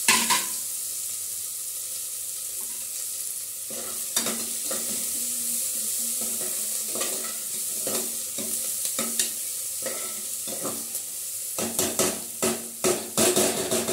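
Onions frying in hot ghee and oil in a pan, a steady sizzle, while they are stirred with strokes that scrape and knock against the pan; the stirring strokes come thicker near the end. The onions are being fried until they start to turn reddish.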